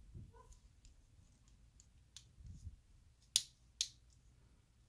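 Faint plastic clicks and ticks from a Bakugan Battle Planet figure being folded by hand into its ball, with two sharper snaps about three and a half seconds in, less than half a second apart, as parts click into place.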